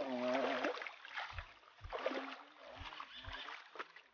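Water splashing as legs wade through a shallow, rocky river, with short bursts of a person's voice near the start and again partway through, and a few low thumps in the middle.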